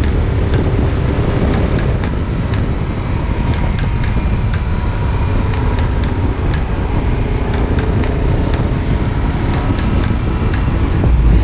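Yamaha Super Ténéré motorcycle on the move: a steady engine drone mixed with wind rush on an action camera's microphone.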